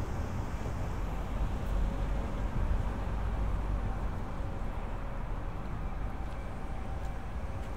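Steady low rumble of city street traffic, with no distinct single event standing out.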